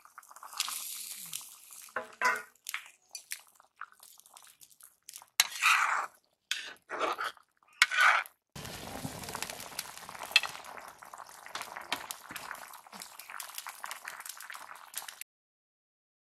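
Metal spatula scraping and clinking against a metal wok as fried fish are tipped in from a steel plate and stirred into the curry, with a few louder scrapes. Then a steady bubbling hiss of the curry at the boil, which cuts off abruptly near the end.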